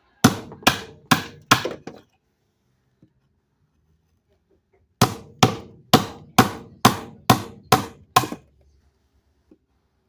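Hammer driving a chisel into wood to chop out a chunk for a vent opening: four sharp blows about two a second, a pause of about three seconds, then eight more blows at the same pace.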